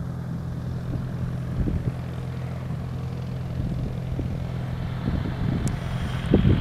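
Light propeller aircraft engine droning steadily in the distance, with scattered low bumps and a thump near the end.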